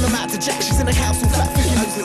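Hip hop music with a heavy bass and drum beat.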